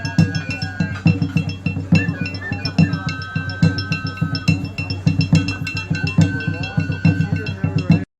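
Music with a steady percussive beat of about two strong low hits a second, dense clicking percussion between them, and long held high melody notes. It cuts off abruptly near the end.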